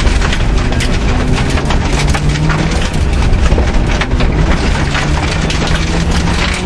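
Suzuki Swift rally car's engine running hard, heard from inside the cabin, its note climbing twice as it accelerates. Loose gravel clatters and pings continuously against the underbody and wheel arches.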